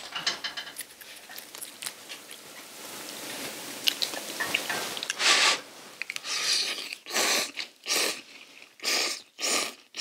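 Ramyeon noodles being slurped from the bowl: a string of about six loud slurps in the second half, each lasting a fraction of a second, with a few light clicks and taps before them.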